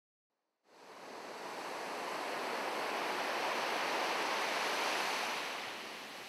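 Ocean surf washing on a beach, a steady rush that fades in under a second in, swells in the middle and eases off near the end.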